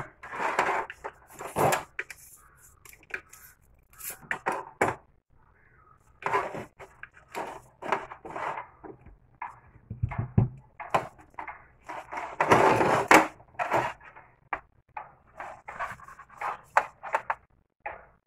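Gloved hands handling a small plastic electric water pump and its cord on a tabletop: irregular rubbing and scuffing with light knocks and clicks of the plastic casing.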